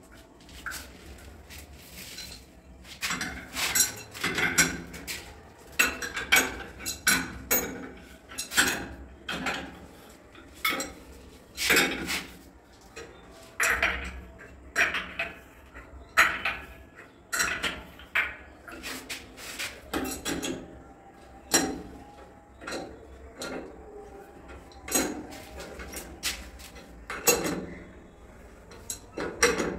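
Irregular metallic clinks, clicks and scrapes of chrome tap fittings being handled and screwed together as a wall-mounted bath mixer and its shower arm are fitted, with a spanner in play near the end.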